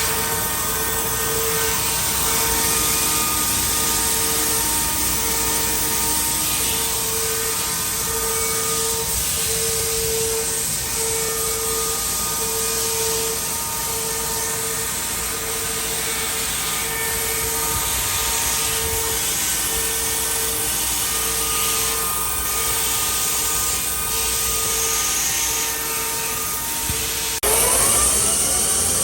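OKK MCV 660 vertical machining center running: a steady mechanical hum with a tone that pulses on and off about once a second. Near the end the sound changes abruptly and a rising whine comes in.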